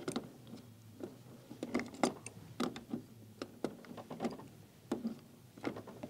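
Small metal wrench clicking against the plastic fittings of a water-filter head as they are tightened: an irregular string of sharp clicks, about three a second.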